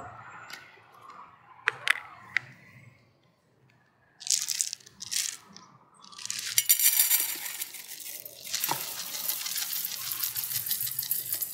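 Dry rolled oats poured from a cardboard canister into an empty stainless-steel pot, a dense gritty rattle and hiss that starts a little past halfway and keeps on. Before it come a few sharp clicks and short rustling bursts as the canister is handled.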